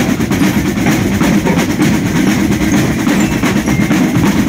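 Marching band drum line playing a rapid, continuous cadence on marching snare drums.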